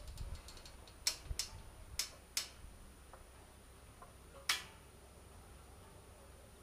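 Rabbits in a wire-mesh hutch making sharp, irregular clicks, about half a dozen over the first four and a half seconds, with faint rustling between them.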